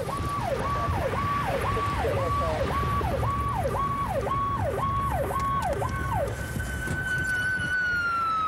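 Police siren on a fast repeating cycle, about one and a half cycles a second, over the low rumble of the moving car. About six seconds in it gives way to a steadier, higher siren tone that begins to slide down in pitch near the end.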